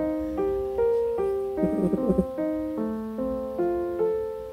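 Background music: a slow, gentle piano melody of single notes, each struck and left to fade.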